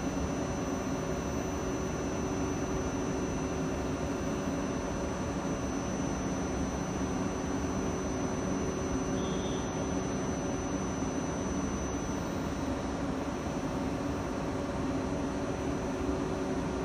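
Steady hum of a South Western Railway electric multiple unit standing at a platform, its onboard equipment running, with a thin constant whine over it.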